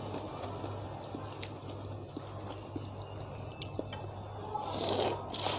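Noodles slurped into the mouth, two loud wet slurps near the end, with quiet chewing and a few small clicks before them.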